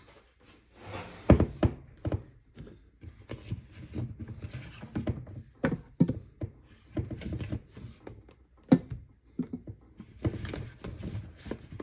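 Cut potato pieces being dropped into a cooking pan one after another, making a run of irregular dull thunks.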